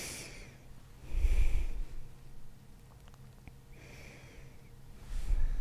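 A woman snoring softly close to the microphone: two low snores, one about a second in and one near the end, with quieter breaths between them.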